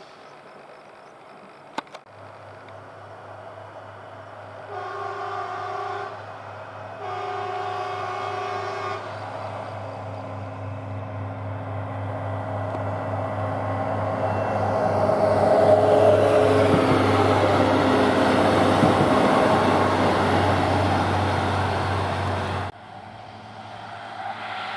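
A ballast cleaning machine on rails sounds its horn twice, each blast a steady chord of about one to two seconds, over a low, steady engine drone. It then passes close by, and the rumble of engine and wheels on the rails grows louder, peaks, and cuts off suddenly near the end.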